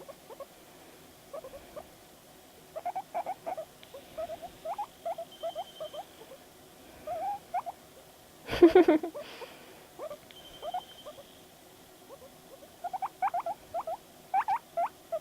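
A guinea pig making a series of short, squeaky, upward-gliding chirps in quick clusters, with one louder, longer burst of noise about halfway through.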